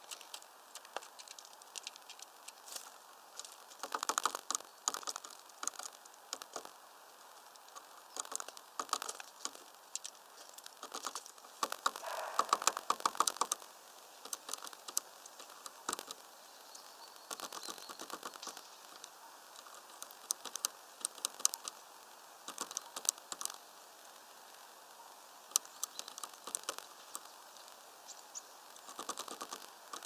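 Tits at a bird feeder pecking at seeds and shifting about on the wood close to the microphone: irregular clusters of sharp clicks and taps, busiest a little before halfway.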